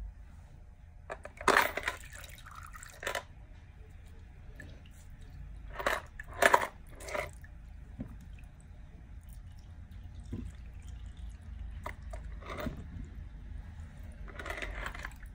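Wet squelching and dripping as a soaked plush teddy bear is squeezed and pressed down in a dish of watery mixture, in several short bursts, loudest about a second and a half in and around six seconds in.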